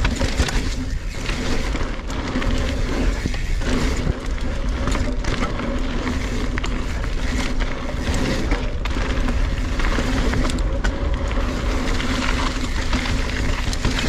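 NS Bikes Synonym mountain bike ridden fast down rocky singletrack. Tyres rumble and grate over dirt and rock, the bike rattles and clatters with frequent small knocks over the bumps, and wind rushes over the microphone throughout.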